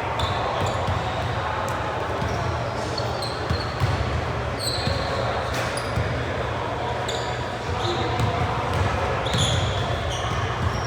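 Basketball game play on a gym court: a ball bouncing and sneakers squeaking in short high chirps many times over, over a steady murmur of voices in the hall.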